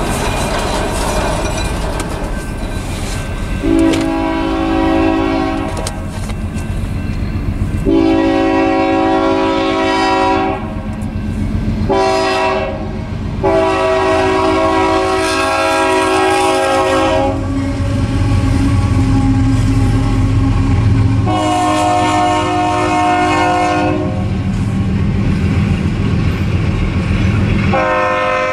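Union Pacific freight locomotive horn sounding the grade-crossing warning as the train approaches: two long blasts, a short one and a long one, then another long blast, and a further blast beginning near the end, over the steady rumble of the train. By the end the freight cars are rolling past with a clickety-clack.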